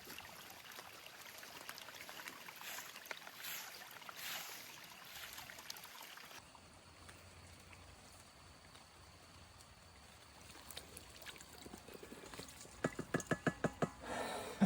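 Running water trickling and splashing, like storm runoff flowing into a pond, for about the first six seconds, then cutting off abruptly to a quieter background. Near the end comes a rapid run of short pitched pulses, several a second.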